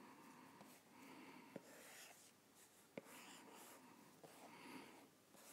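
Near silence: faint strokes of a stylus drawing on an iPad screen, with a couple of light taps as the tip touches the glass.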